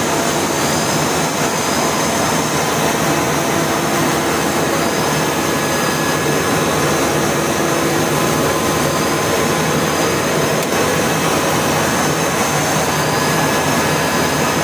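Open-end rotor spinning machine running: a loud, steady whooshing drone of spinning rotors and suction airflow, with a faint high whine over it.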